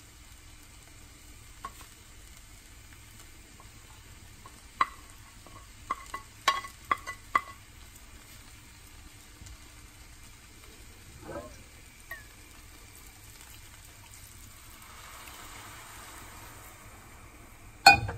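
Rice noodles and vegetables frying quietly in a nonstick pan, a faint steady sizzle. About five to seven seconds in comes a run of sharp clicks and knocks. Near the end a wooden spatula strikes the pan with one loud knock as the food is stirred.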